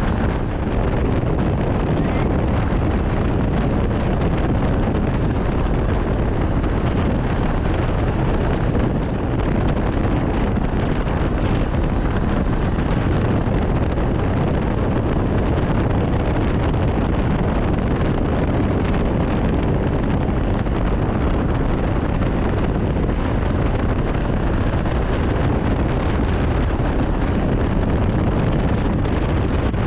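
Steady wind rush buffeting the action-camera microphone on a moving Honda CB500X motorcycle, with the bike's parallel-twin engine running underneath.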